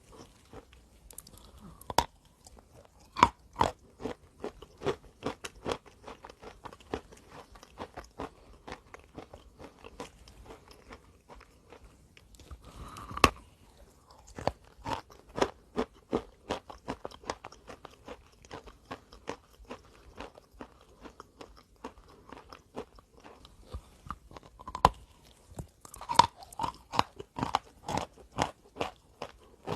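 A person biting and chewing dry, chalky chunks close to the microphone: a steady run of crisp crunches, with a few loud snapping bites and a quick flurry of crunching near the end.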